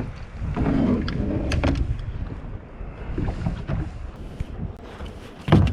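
Wind buffeting the microphone over water slapping against a small boat's hull, with scattered knocks and a louder thump near the end.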